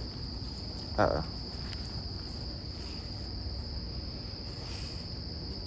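Crickets chirring in a steady, unbroken high-pitched drone.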